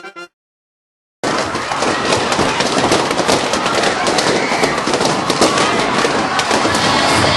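Loud, dense crowd noise filled with rapid sharp pops and cracks. It starts abruptly about a second in, after a brief cut to silence.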